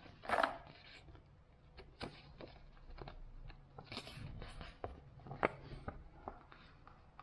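Paper rustling with light taps and clicks as printed cards and a folded quick-start leaflet are handled and opened out. There is a louder rustle about half a second in and a sharp tap about five and a half seconds in.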